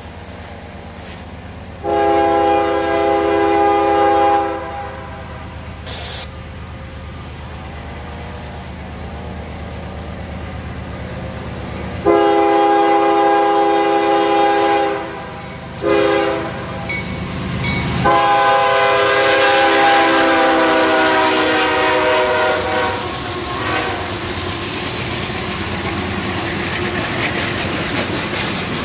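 Diesel freight locomotive's multi-chime air horn sounding the grade-crossing pattern: long, long, short, long. The last blast drops in pitch as the locomotive passes. The engine and the double-stack intermodal cars follow, rumbling and clacking over the rails close by.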